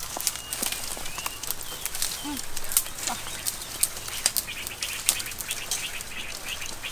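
Dry twigs and brush snapping and crackling, with branches rustling, as dead sticks are broken off by hand. The snaps come irregularly and closely spaced.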